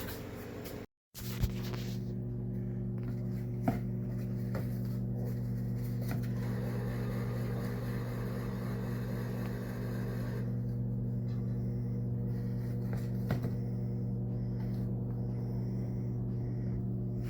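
Steady low electrical hum with a few faint clicks, cut by a brief dropout about a second in.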